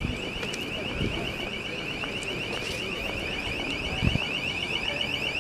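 A motorboat's alarm sounding: a rapid, high-pitched pulsing beep that keeps on steadily, over outdoor street noise, with a low thump about four seconds in.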